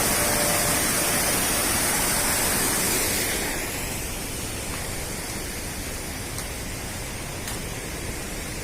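Waterfall: a steady rush of falling water. It turns quieter and less hissy about three and a half seconds in.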